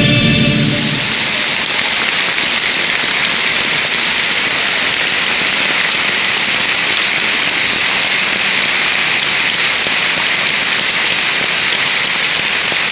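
Music with a choir ends about a second in, and a large audience then applauds steadily.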